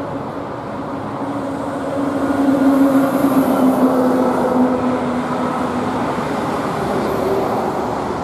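Steady road-traffic noise, with a heavy vehicle's droning engine swelling about two seconds in, its pitch sinking slightly as it passes, and easing off after about five seconds.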